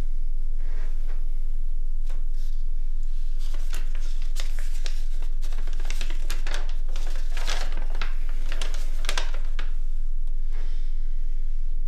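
Paper rustling and crinkling as a folded letter is handled and unfolded, in a run of short crackles from a few seconds in until near the end. A steady low hum lies underneath.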